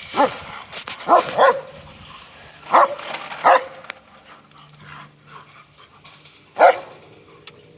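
German Shepherd dogs barking: about six sharp barks at irregular intervals, with a longer pause before the last one near the end.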